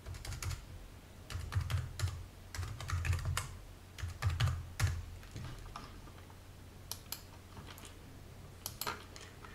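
Typing on a computer keyboard: quick runs of keystrokes in several bursts, followed by a few single clicks near the end.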